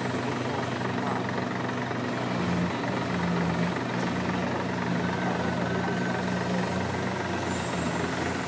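Terex O&K hydraulic mining shovel's engines running under working load as it digs at the rock face: a steady low drone whose hum shifts in pitch a few times.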